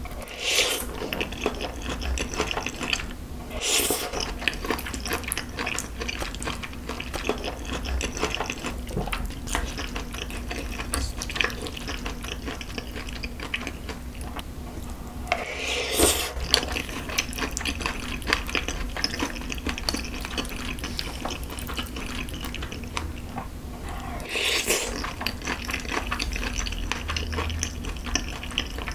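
Close-miked wet chewing and slurping of spicy stir-fried Buldak ramen noodles, with four louder slurps: near the start, about 4 seconds in, about 16 seconds in and near the end.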